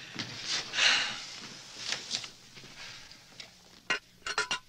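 Soft table noise, then a few sharp clinks of dishes and cutlery near the end.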